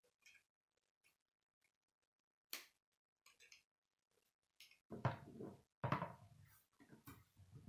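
Small clicks of K'nex plastic parts being handled and snapped together, with a sharper click about two and a half seconds in. From about five seconds in come louder knocks and scraping as the plastic assembly is set down and moved on a wooden table.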